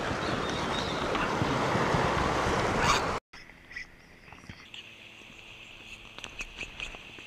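Sea surf washing on rocks with wind buffeting the microphone, cut off abruptly about three seconds in; a much quieter stretch follows, with a faint steady high tone and a few scattered clicks.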